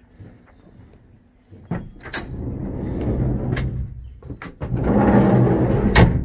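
VW T25 sliding side door rolling along its track and shutting with a sharp, loud clunk near the end.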